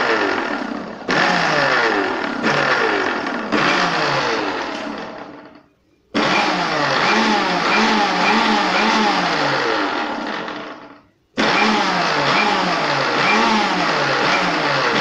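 Mixer grinder with a stainless steel jar blending liquid eggs and seasonings. It is switched on and off in short pulses over the first few seconds, then run in two longer stretches, its whine falling as the motor coasts down after each stop; the on-off running is for a blend rather than a grind.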